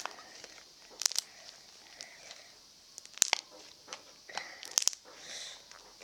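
Foamy shaving-foam slime being stretched and squeezed, giving several sharp pops and crackles a second or two apart.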